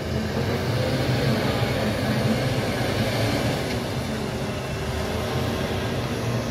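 MAN TGM 18.290 recycling truck's six-cylinder diesel engine running steadily as the truck turns and pulls away at low speed.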